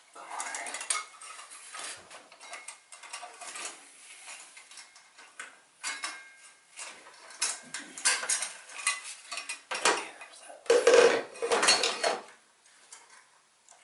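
Metal engine parts and a bent metal tube clinking, scraping and rattling as they are handled and fitted. A louder stretch of clattering comes about eleven seconds in.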